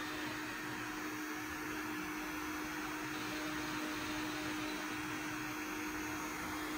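CNC router spindle running with a steady hum over a hiss, while its small bit bores holes into a wooden panel.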